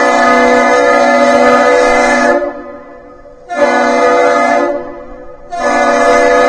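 The lake freighter Alpena's horn sounding a salute. A long blast ends about two and a half seconds in, followed by two short blasts of about a second each, a second apart.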